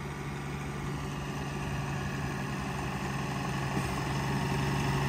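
New Holland tractor's diesel engine running steadily under load as it pulls a mounted Kuhn plough through the soil, growing louder as it comes closer.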